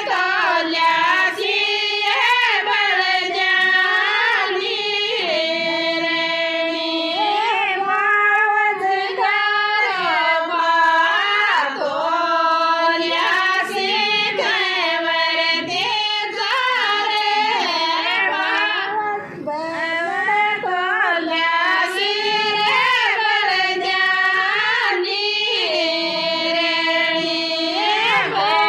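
Women's high voices singing a devotional folk song to Tejaji, unaccompanied, in long held notes with ornamented slides between pitches.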